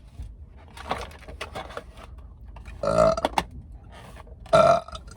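A woman burping twice: two loud, pitched belches of about half a second each, about three seconds in and again near the end, with a few light clicks before them.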